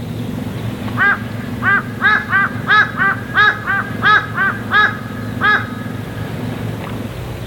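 A crow cawing in a quick series of about a dozen harsh caws, two or three a second, stopping after about five and a half seconds. A steady low rumble runs underneath.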